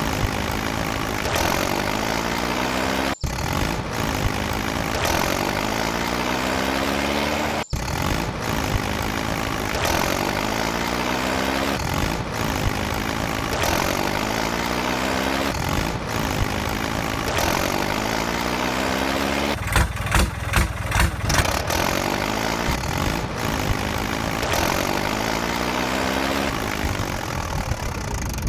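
Tractor engine revving in repeated surges, with a run of short sharp bursts about two-thirds of the way through.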